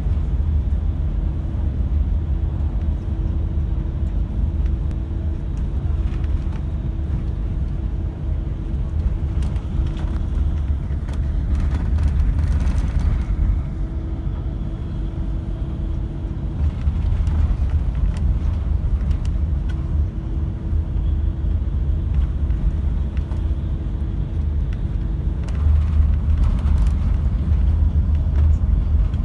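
Cabin noise of a moving car: a steady, heavy low road rumble, with a faint hum that fades in and out several times.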